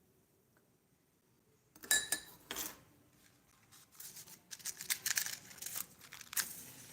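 Crinkling and rustling in irregular bursts, starting about two seconds in, like paper or plastic being handled.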